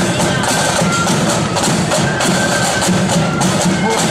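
Marching flute band playing a march: sharp, rapid snare drum strokes and a bass drum beat under a high flute melody.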